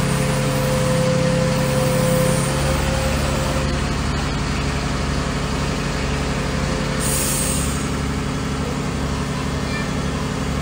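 An engine running steadily, with a short hiss about seven seconds in.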